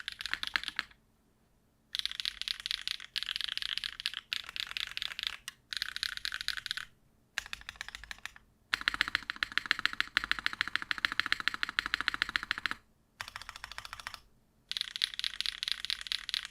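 Typing on a custom mechanical keyboard fitted with 80Retros HMX switches, a quick clacking of keystrokes. It comes in bursts broken by several short pauses, with one long fast run in the middle.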